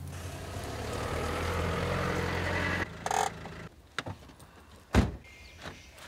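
A van's engine running steadily, stopping abruptly about three seconds in. A single sharp knock follows about five seconds in.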